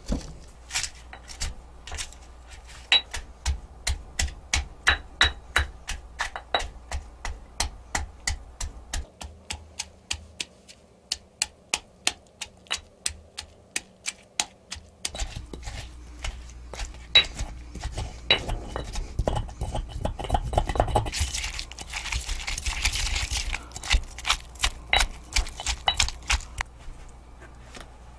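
Stone pestle pounding red chillies in a granite mortar: rapid, sharp stone-on-stone knocks, about three a second, with a short pause near the middle. About two-thirds of the way through the pounding turns to a rough scraping grind for a second or two before the knocks resume.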